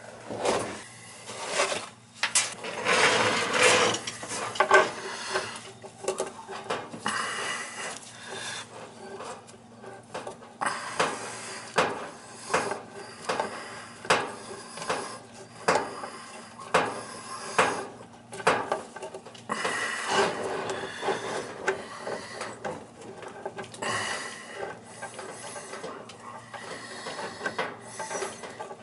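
Gloved hand working at a brass Symmons washing machine valve and its braided supply hose in a recessed wall outlet box: irregular scraping, rubbing and sharp clicks of metal and plastic, busiest a few seconds in.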